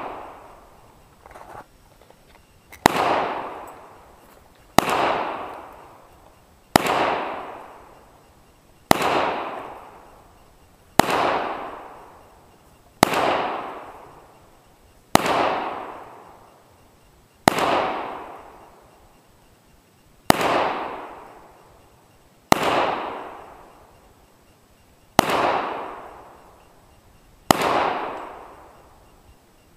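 Glock 23 .40-calibre pistol fired slowly, twelve single shots about two seconds apart. Each shot is followed by a long echo that fades away before the next.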